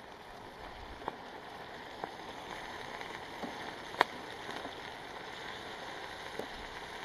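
Cooking fire crackling: a steady hiss with scattered sharp pops, the loudest about four seconds in.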